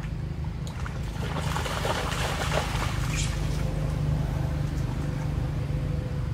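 Steady low wind rumble on the microphone. From about one to three seconds in, monkeys wade through shallow muddy floodwater and the water splashes.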